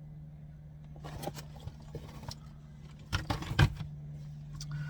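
Handling noise from a boxed bathroom faucet being held up and moved: a few rattles, clicks and scrapes, busiest about three seconds in, over a steady low hum.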